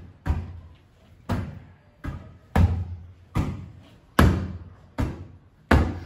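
Hands slapping a large inflatable ball in a rally, seven sharp hits at roughly even spacing, each one echoing briefly in the room.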